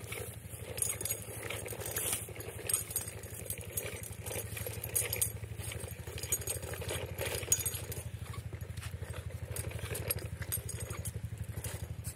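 Plastic pull-along toy dog rolling on a concrete ledge, its wheels and hinged plastic legs rattling and clicking irregularly. Under it runs a steady low hum with a fast flutter.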